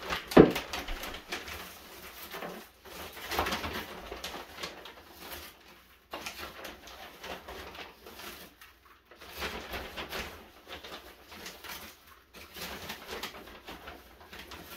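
A hard plastic bowl knocks once on a wooden floor as it is set down. Then a hand scoops potting soil out of a plastic bag into the bowl in repeated spells of rustling and crackling with short pauses between scoops.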